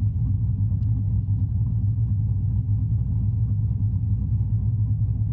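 Camaro's LS1 5.7-litre V8 idling steadily, an even low rumble with no revving.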